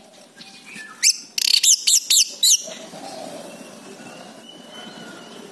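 Orange-headed thrush singing: a quick, loud run of about five sweeping whistled notes about a second in, followed by softer, thin drawn-out whistles.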